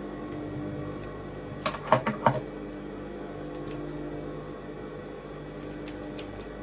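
Sewing machine stitching a weft onto a wig net: a steady hum with two short clusters of clicks, about two seconds in and again near the end.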